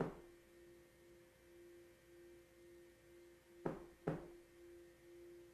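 A tuning fork's steady, pure mid-pitched tone, with a fainter overtone above it, ringing on unbroken. Two brief sharp noises come a little past halfway.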